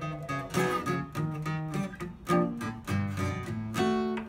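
Taylor steel-string acoustic guitar played fingerstyle: a walking bass line of single low notes stepping from pitch to pitch, with chords plucked over it.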